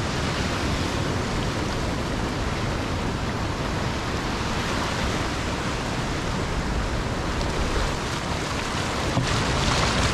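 Small surf breaking and washing up the sand around the feet, mixed with wind buffeting the microphone; the wash grows louder near the end as the water surges up.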